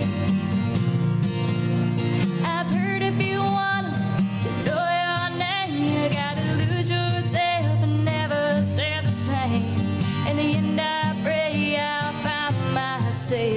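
A woman singing a country song while strumming an acoustic guitar.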